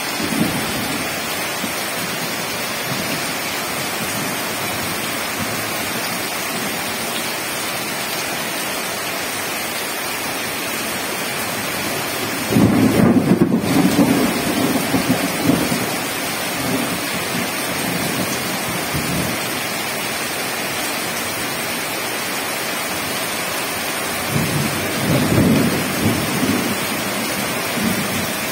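Heavy rain falling steadily on wet ground. About halfway through, a loud rumble of thunder rolls for a few seconds, and a second, weaker rumble comes near the end.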